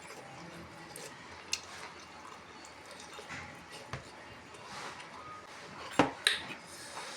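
Cookware and utensils knocking in a kitchen: a few scattered sharp clinks, the loudest two close together about six seconds in, over a steady low hiss.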